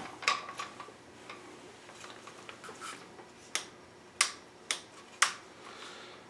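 Irregular sharp clicks and clinks of small metal tools and rifle parts being handled and set down, the loudest four in the second half.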